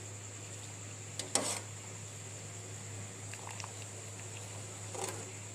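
A few light knocks, the strongest about a second in and another near the end, over a steady electrical hum with a faint high whine.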